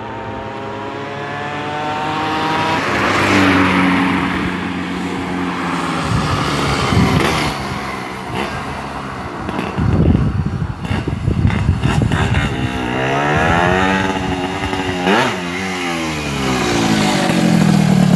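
1999 Yamaha RD135's two-stroke engine being revved up and down several times, its pitch rising and falling, then holding a steady lower note near the end. The carburettor has just been tuned and the engine is running well.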